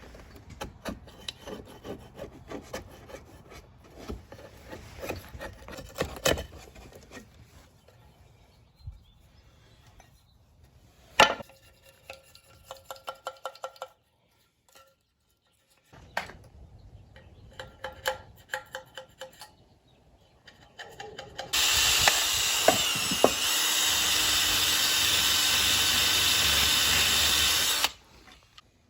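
Old gasket being scraped off a Honda CT70 engine case: irregular scraping and rubbing strokes with small clicks and taps. Later, a loud steady spray hiss runs for about six seconds and cuts off suddenly.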